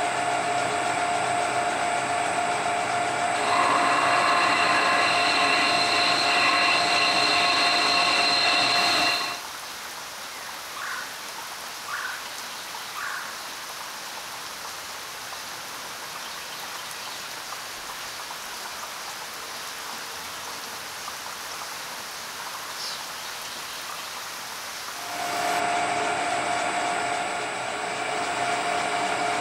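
Colchester metal lathe running, with a steady multi-tone gear whine while a large twist drill bores into the spinning bar; the whine gets louder about three seconds in. About nine seconds in it drops away to a much quieter even hiss with a few light clicks, and the whine returns near the end.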